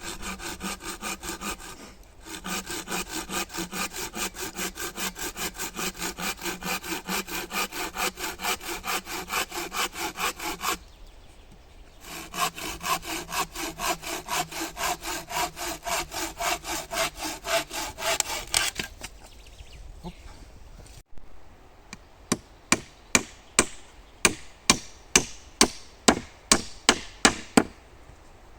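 A hand saw cutting wood in steady back-and-forth strokes, about three a second, in two long runs with a short pause between. Near the end come about a dozen sharp, loud knocks on wood.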